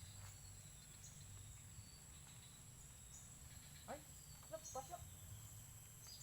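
Faint outdoor ambience: a steady high-pitched insect drone over a low rumble, with a few short faint calls about four seconds in.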